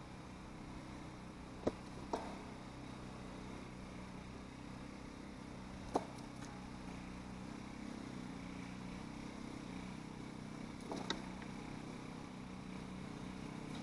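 A rabbit sneezing a few times, each sneeze a short sharp burst: two close together about two seconds in, one about six seconds in, and two more near the end. Under them runs a steady low hum.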